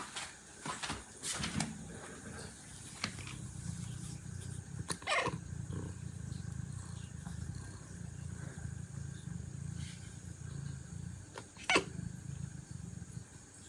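Cat giving a steady low rumble that starts about three seconds in and runs until near the end, with a short falling cry about five seconds in and a sharp sound near the end.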